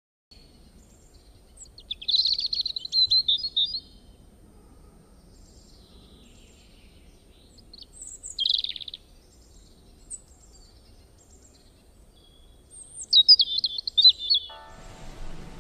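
A songbird singing three short, fast warbling phrases, with faint chirps in between. Music comes in near the end.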